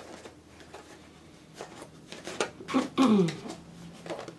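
A cardboard yarn advent-calendar box and its mini skeins being handled, with a few soft knocks and rustles. About three seconds in comes a short voice-like hum that falls in pitch, the loudest sound of the moment.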